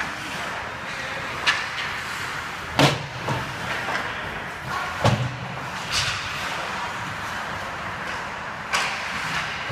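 Ice hockey play in a rink: several sharp knocks and clacks of puck, sticks and boards over a steady hiss, the loudest about three seconds in, others near one and a half, five, six and nine seconds.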